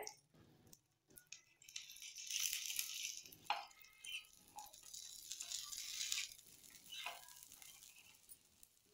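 Faint sizzling of oil on a hot tawa in two short stretches, with a few light taps and scrapes of a metal spatula sliding under the potato omelette.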